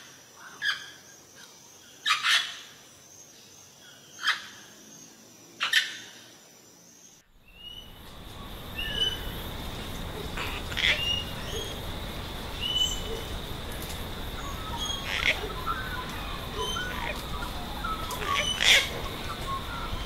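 Wild parrots calling: four loud, harsh squawks from a green Amazon parrot in the first six seconds. After an abrupt change of background about seven seconds in, three sharp calls from a blue-headed parrot stand out over a steady high tone and a small bird's repeated short chirps.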